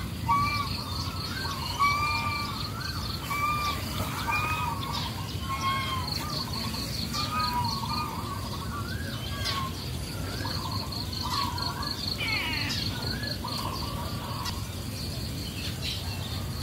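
Birds chirping in short, rising-and-falling notes, over a high, fast-pulsing insect trill that drops out for a few seconds at a time.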